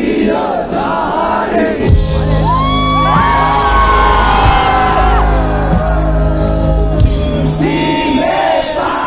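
Live band music played loud through a concert PA: long held sung notes over a heavy bass line through the middle, with a crowd singing and shouting along near the start and again near the end.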